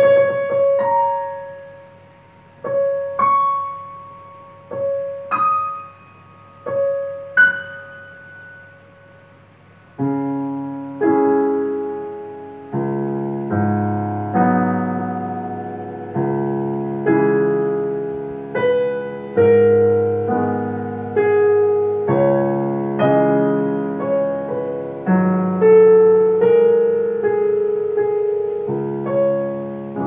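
Dexibell VIVO H3 digital piano playing its modelled acoustic piano sound through its own built-in speakers. A slow, sparse line of single notes rings out and fades, and about ten seconds in it fills out into full chords with a flowing accompaniment.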